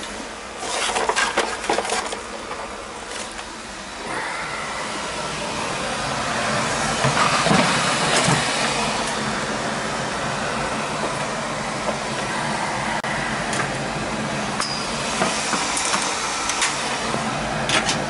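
A few clattering knocks, then about four seconds in a steady rushing noise comes up and holds, with occasional sharp clicks: the oil burner of a Weil-McLain boiler firing and running, its high limit just raised so it can run.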